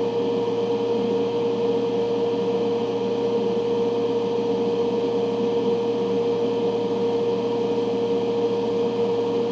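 Ventilation fan running steadily: a constant hum with one strong steady tone over an even rushing noise.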